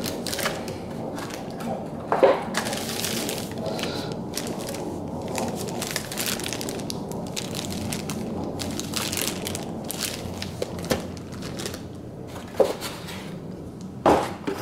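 Plastic anti-static bag crinkling and rustling as a car stereo head unit sealed inside it is handled, with a few knocks, the loudest near the end.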